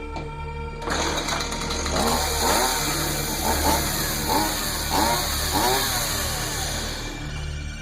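Chainsaw revving over and over, its pitch rising and falling about every two-thirds of a second, over a low steady music drone. It starts about a second in and fades near the end.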